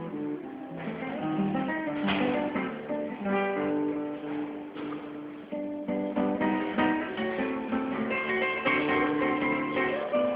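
Instrumental music: a melody of ringing, sustained notes over chords, with a plucked-string character, running without a break.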